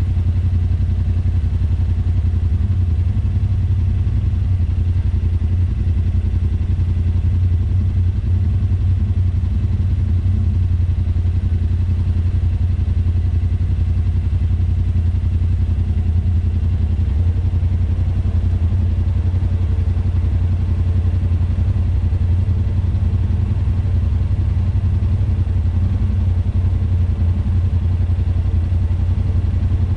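Yamaha RMAX 1000 side-by-side's parallel-twin engine idling steadily while the buggy sits stopped.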